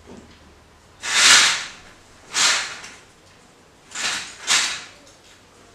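Room doors being closed: four short swishes about a second apart, the last two close together.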